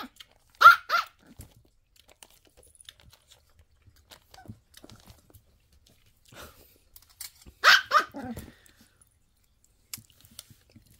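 A dog barking in two quick double barks, one about a second in and another about eight seconds in, with faint clicks and taps between them.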